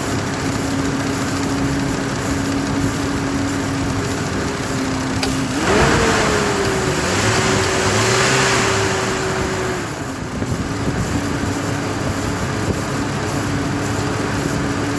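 Chevy Trailblazer engine idling with a newly fitted fan clutch, revved once about five and a half seconds in and held for about four seconds with a rush of air, then back to idle. No loud whining wind noise from the fan: the owner says it sounds pretty good with the new clutch.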